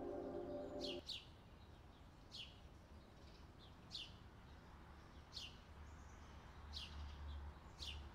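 A bird repeating a short, high chirp that falls in pitch, about once every second or so, faint. A soft held musical chord underneath stops about a second in.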